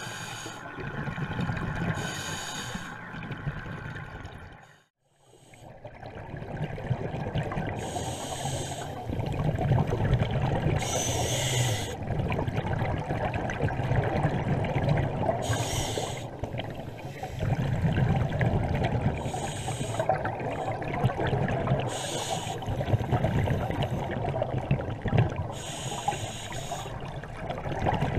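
Scuba diver breathing through a regulator, heard underwater through a camera housing: a hiss with each inhale and a rumble of exhaled bubbles, about one breath every few seconds. The sound cuts out briefly about five seconds in.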